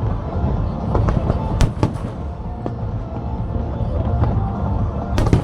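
Fireworks bursting: a continuous low rumble of shells going off, with sharp bangs standing out, two in quick succession about one and a half seconds in and another loud one near the end. Music plays underneath.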